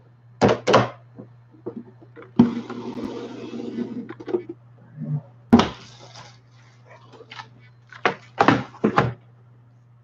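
Handling noises: a series of sharp knocks and thumps, with about two seconds of rustling a couple of seconds in, over a steady low hum.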